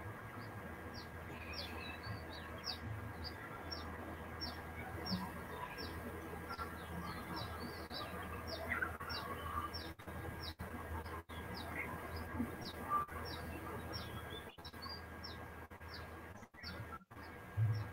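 A bird chirping over and over, short high notes that slide downward, about two a second, over a steady low electrical hum.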